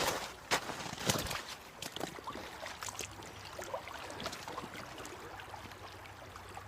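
A few crunching footsteps through brush in the first second or so, then softer rustling and crackling, with a creek running faintly underneath.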